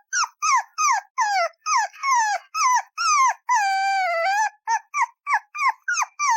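Puppy whining and yipping: a fast string of short, high cries, each falling in pitch, about two a second, with one longer drawn-out whine about halfway through.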